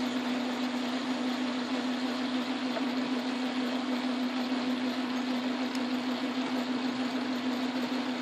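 Metal lathe running steadily while a large Morse No. 2 taper-shank twist drill in the tailstock bores into the spinning metal workpiece: a steady hum with an even hiss of cutting over it.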